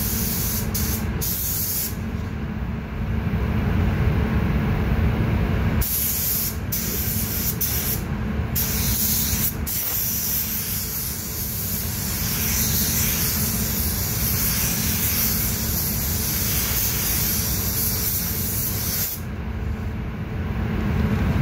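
Gravity-feed paint spray gun hissing as it lays a light coat of white base coat on a car, in several passes. The hiss stops for a few seconds about two seconds in and again near the end as the trigger is let go, with short breaks between passes. A steady low rumble runs underneath.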